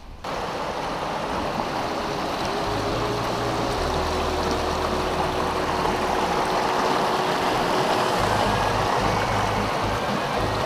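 Mountain river rushing over rocks and small rapids: a steady rush of water that grows slightly louder as it comes closer.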